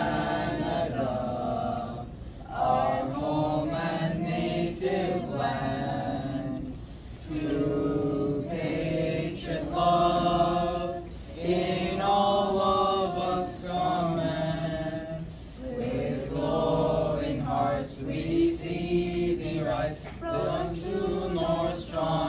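A small group of young singers, boys' and girls' voices together, singing a cappella in long held phrases with short breaks between them.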